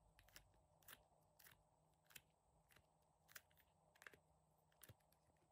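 Faint, crackly clicks, about two a second and unevenly spaced, as soft clay pieces are pressed and popped out of a silicone honeycomb mold by hand.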